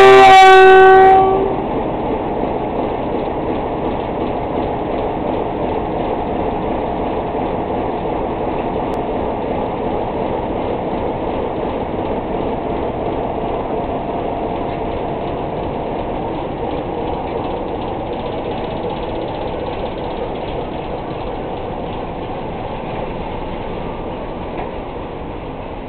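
Train horn blast ending about a second in, followed by the steady running noise of a passenger train pulling out of a station, slowly growing quieter.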